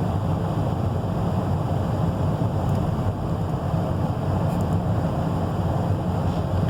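Car's HVAC blower pushing heated air out of the dash vents: a steady rush of air with a low hum underneath.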